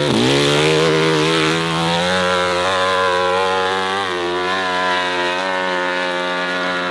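Modified hill-climb motorcycle engine held at high revs as the bike climbs a steep dirt slope. The revs dip and pick up again right at the start, then hold a steady high pitch with a slight change about four seconds in.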